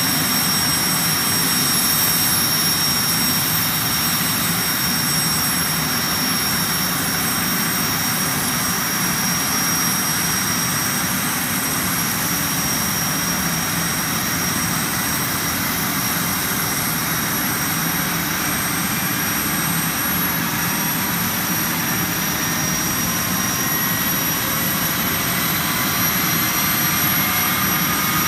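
Aérospatiale Gazelle helicopter's Turbomeca Astazou IIIA turboshaft running on the ground during startup: a steady high-pitched turbine whine over a rushing noise. From about two-thirds of the way through, fainter tones slowly rise in pitch as the slowly turning main rotor comes up to speed.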